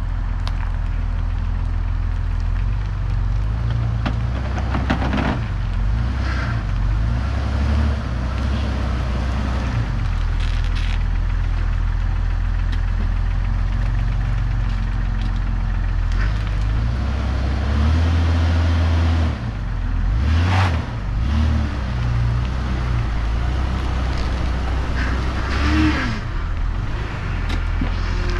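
Jeep Cherokee XJ engine running while the Jeep is moved at low speed, its note rising and falling a few times, with a few sharp knocks.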